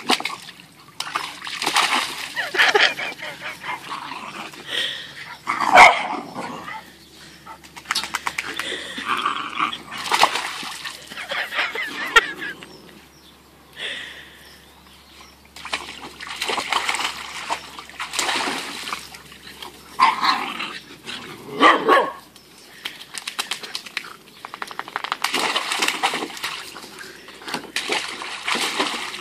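An Irish red setter puppy splashing and pawing at the water in a plastic paddling pool, in repeated bouts, with a dog barking now and then; the loudest barks come about six seconds in and again near twenty-two seconds.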